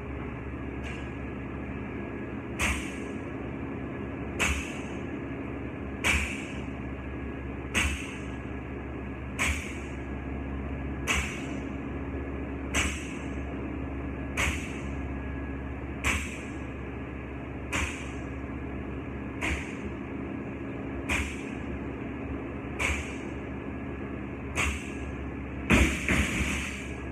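A 185-pound barbell with bumper plates touching down on a rubber gym floor on each deadlift rep, about once every 1.7 seconds, around fourteen times. Near the end it is dropped with a louder clatter.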